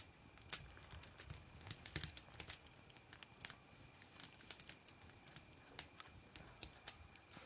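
Campfire firewood crackling: irregular sharp pops and snaps, sometimes several close together, over a faint steady hiss.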